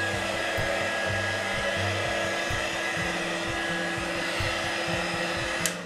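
Handheld heat gun blowing steadily over wet acrylic pouring paint to pop air bubbles in the surface, a steady hum and whine over the air rush. It switches off abruptly just before the end.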